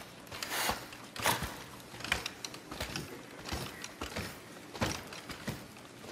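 Life-size puppet horse of plywood and aluminium being walked by its puppeteers: irregular knocks of its hooves on the stage floor with creaks and rustles from its frame.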